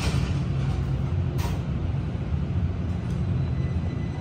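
Interior sound of a Kaohsiung MRT Red Line train car: a steady low rumble, with two short hisses near the start. A faint steady high whine joins about halfway through.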